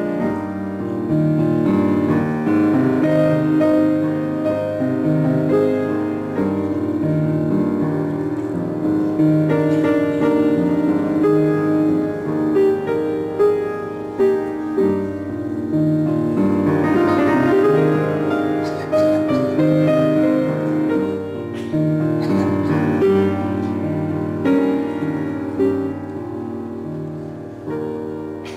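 Solo piece on a grand piano, chords and melody held over a repeating lower line.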